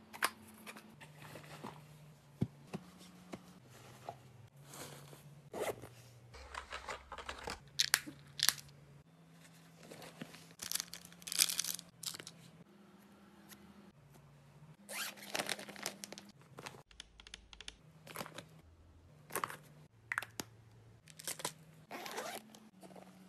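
Intermittent rustling and crinkling of fabric and plastic as a nylon bag and a clear plastic zip pouch are handled and packed, with a zip being worked near the end.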